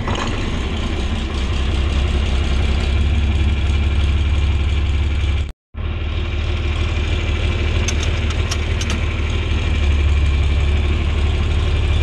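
John Deere 4020 tractor's six-cylinder engine idling steadily, freshly started and warming up. The sound drops out for a split second about halfway through.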